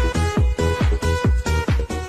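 Electronic dance music: a fast four-on-the-floor beat of deep kick drums, about four a second, under bright synth notes.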